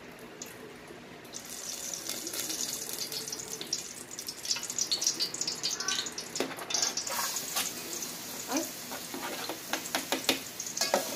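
Cooking oil hissing and sizzling in a steel pot, starting about a second in and growing brighter in the second half as chopped garlic and onion go in. Scattered clicks and scrapes come from a spatula pushing the food off a plastic cutting board into the pot.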